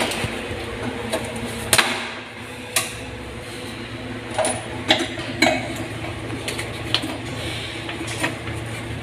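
Irregular knocks and clinks of hand tools and fittings being handled during plumbing work, about seven sharp hits spread unevenly over several seconds, over a steady hum.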